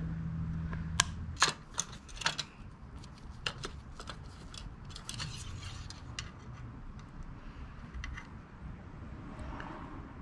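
Scattered light clicks and taps of plastic parts being handled at a snow blower's oil filler, as the dipstick is taken out to check the level after refilling with oil. Most of the clicks fall in the first two-thirds, over a low steady hum.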